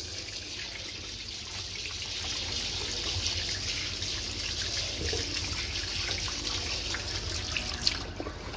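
Water running from a push-top self-closing basin tap, splashing steadily into a ceramic countertop sink and down the plughole.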